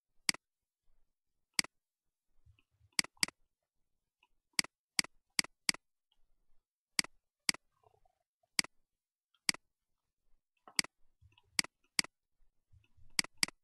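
Computer mouse button clicking: about twenty sharp clicks at irregular intervals, some in quick pairs, as the mouse is clicked and dragged to move parts of a 3D model.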